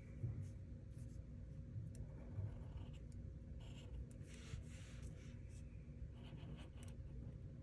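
Black permanent marker drawing along lines on paper: faint, short hissing strokes at irregular intervals, over a steady low room hum.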